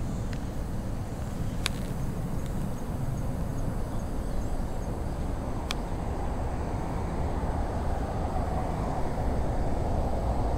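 Steady low rumble of outdoor background noise, with a couple of sharp ticks about two and six seconds in.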